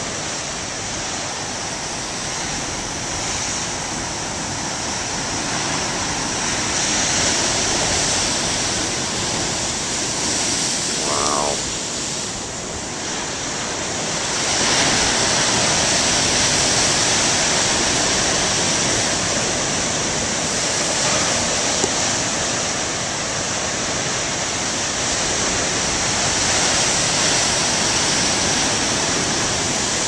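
Large storm waves breaking, a continuous rush of heavy surf that grows louder about six seconds in, eases briefly, and swells again about fifteen seconds in.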